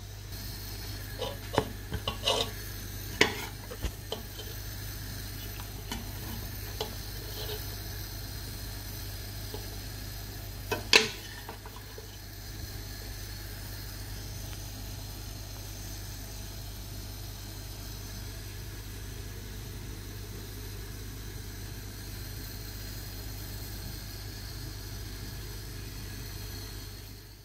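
A metal spoon stirring a thick peanut-butter stew, clinking and scraping against the cooking pot: several sharp clinks in the first few seconds and the loudest one about eleven seconds in. A steady low hum and hiss underlies it.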